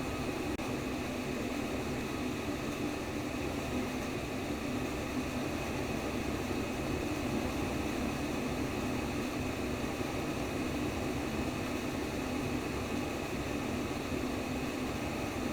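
Simulated womb sound: steady, unchanging white noise, strongest low down, with a faint steady high tone.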